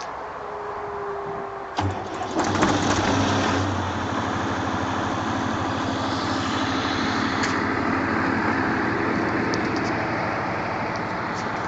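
Atlas Copco QAS 60 sound-enclosed diesel generator starting up. A couple of seconds in the engine turns over, catches and runs up, then settles into a steady, even run.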